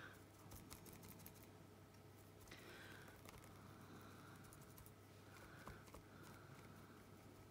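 Near silence: faint scraping and small taps of a brush spreading thick crackle paste around a clock rim, over a low steady hum.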